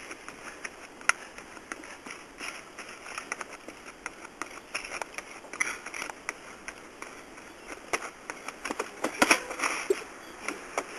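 Unicycle on concrete steps: a run of short knocks as the tyre and pedals meet the stairs. About nine seconds in comes a cluster of louder knocks and clatter as the rider falls and the unicycle hits the steps.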